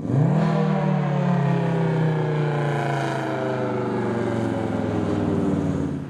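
Federal Signal 3T22 outdoor warning siren sounding its three-tone chord for the noon test. The chord comes in abruptly, its pitch sags slightly as it holds, and it drops off sharply near the end.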